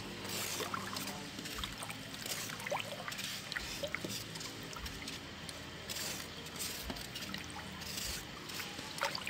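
Water sloshing and swirling as a wooden stick stirs the nutrient solution in a plastic-lined hydroponic tub, mixing in the photosynthetic bacteria just added.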